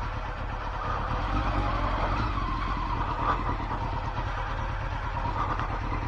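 Honda CBR900RR Fireblade's inline-four engine running steadily as the bike rolls along at low speed.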